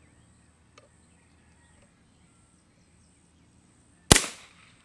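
Brocock Atomic XR air pistol's two-stage trigger, pulled with a trigger-pull gauge, breaking near the end: one sharp crack as the sear releases and the hammer falls, ringing off over about half a second. A faint click comes about a second in.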